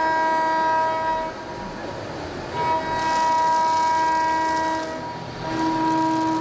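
CNC milling cutter machining the blades of a metal compressor part: a steady high-pitched whine with overtones that fades out twice and comes back as the cutter works, with a hiss of cutting around the middle.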